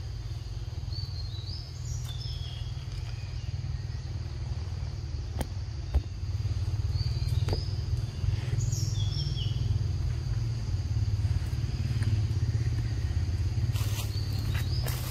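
Forest birds calling in short, high, falling phrases, three times, over a steady low rumble. A single sharp click comes about six seconds in.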